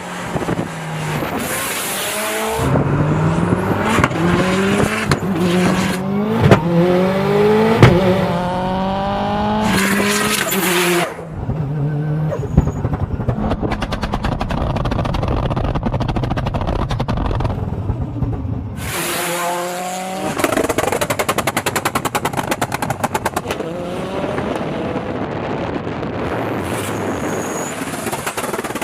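Turbocharged flat-four of an 850 hp Subaru WRX STI accelerating hard, its revs climbing and dropping back at each of several gear changes, with sharp exhaust bangs. Off the throttle it crackles and pops rapidly for several seconds, then pulls through the gears again and goes back to rapid popping.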